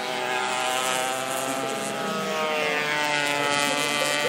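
Suzuki AX100 two-stroke single-cylinder racing motorcycle running at high revs as it accelerates, its pitch climbing over the last couple of seconds.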